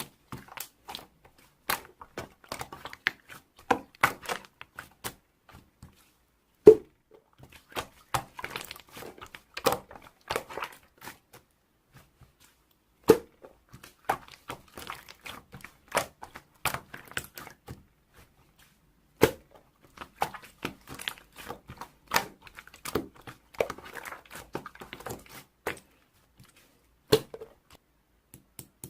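Slime being squished, stretched and poked by hand: a run of small sticky clicks and pops, with four louder thuds spaced several seconds apart as it is folded or pressed.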